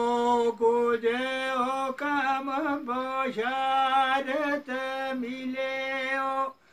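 A man singing unaccompanied in a high, drawn-out voice, holding long, level notes with small ornamented turns between them. He breaks off for a breath near the end.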